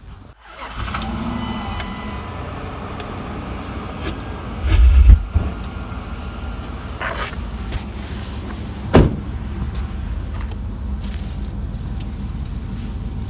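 2000 Dodge Durango's engine starting about half a second in and then idling steadily through a muffler-deleted exhaust, with only a gutted catalytic converter left in the line. It gives one short, loud rev about five seconds in. A single sharp knock sounds about nine seconds in.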